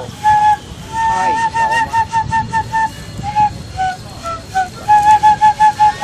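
Sogeum, a small Korean transverse bamboo flute, playing a melody of short, quickly repeated high notes, about five a second, broken by a few longer held notes and steps down in pitch.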